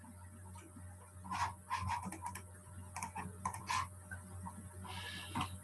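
Faint, irregular clicking of a computer keyboard and mouse, with scattered clicks clustered through the middle, over a steady low electrical hum.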